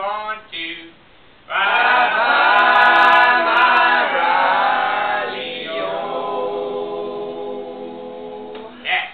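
Unaccompanied (a cappella) singing. After a short pause about a second in, a loud sung phrase of long held notes begins and slowly fades.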